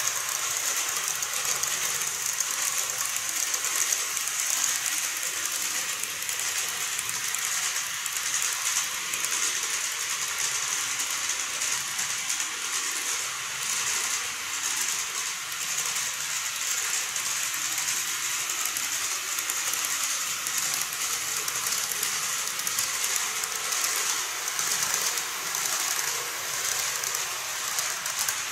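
N-gauge model train running on its track: a steady high-pitched whir and hiss of the motor and wheels on the rails, with fine clicking over the rail joints.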